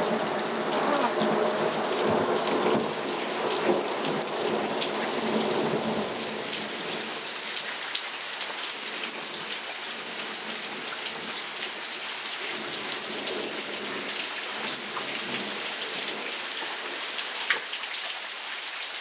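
Heavy rain pelting a screened pool enclosure, a steady hiss. A low rumble of thunder fades out over the first several seconds, and a few sharp drip taps stand out.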